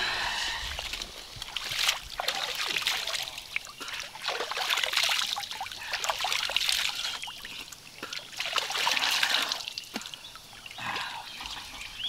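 Hands scooping lake water and splashing it onto a face, in repeated bouts of splashing and trickling a second or two apart.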